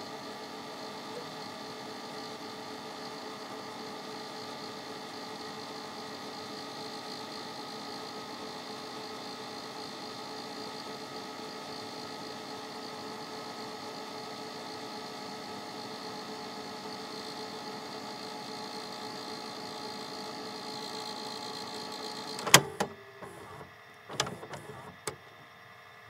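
A VHS tape winding in fast forward in a VCR: a steady whir with several steady whining tones. About three-quarters of the way through, a loud sharp click and then a couple of smaller clunks come from the mechanism, and a fainter whir carries on after them.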